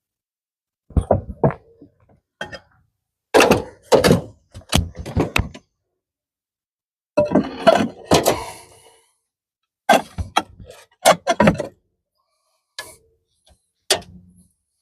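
Hard objects knocking and clattering in irregular bursts of several sharp knocks each, with short pauses between the groups.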